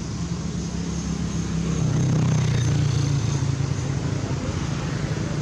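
A motor vehicle's engine running steadily, growing louder about two seconds in.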